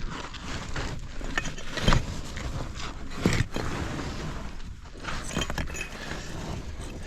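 Caving suit and gear scraping and knocking against rock as a caver squeezes through a tight passage, with small stones clinking; two louder knocks come about two and three seconds in.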